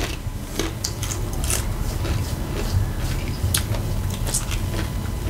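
Close-up mouth sounds of someone eating a taco salad with tortilla chips: chewing, with scattered crunches and smacks. A steady low rumble runs underneath.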